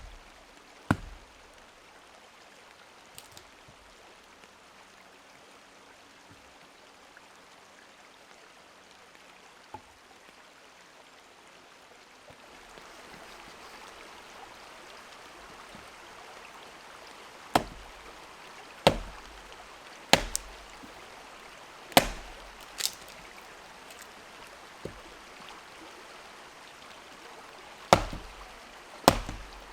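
Sharp knocking blows, two near the start and then a run of them every second or two in the second half, over a steady rush of flowing water that grows a little louder about halfway through.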